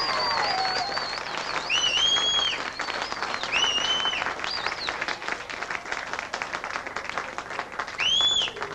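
A crowd clapping and cheering, with a few short high-pitched cheers rising and falling over steady applause.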